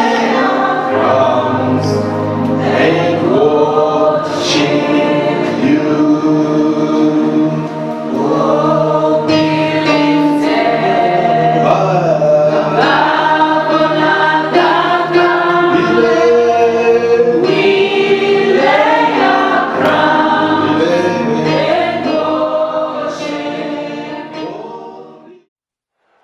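Gospel choir singing with many voices together over steady music, fading out near the end.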